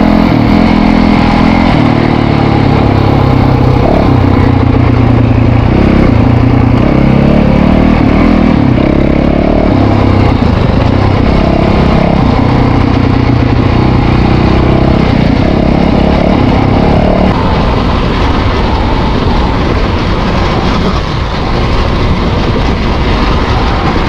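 Dirt bike engine running as it is ridden along a gravel trail, its pitch rising and falling with the throttle and gear changes. It gets somewhat quieter about two-thirds of the way through.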